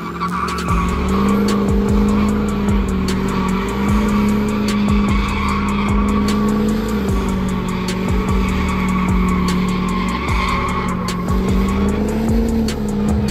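A pickup truck doing a burnout: its engine is held at high, steady revs that rise and dip slightly, over the hiss and squeal of spinning tyres.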